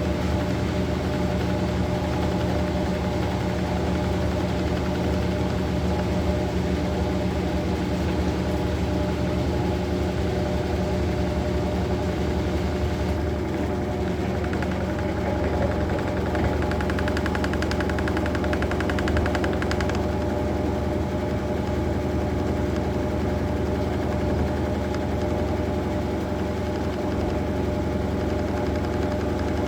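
Maytag Bravos MCT top-load washing machine running, a steady motor hum with a fine rapid rattle added for several seconds in the middle.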